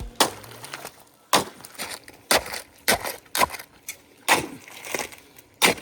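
A series of about nine sharp knocks on wood, irregularly spaced, as from a tool striking timber.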